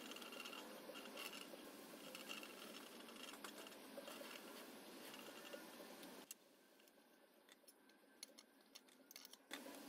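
Near silence: faint background hiss with scattered soft ticks. The hiss drops away about six seconds in and comes back near the end.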